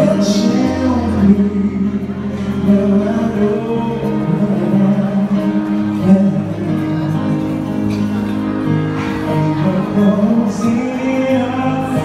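Live band playing a pop ballad cover through the PA, with a male singer's held vocal lines over electric guitar, keyboard and saxophone.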